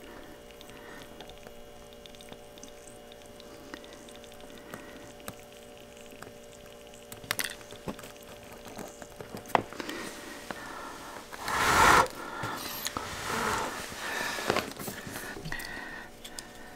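Small clicks and rustles of hands working a soldering iron and a wire at an XT60 connector, over a faint steady hum. About twelve seconds in comes a short, loud rush of noise.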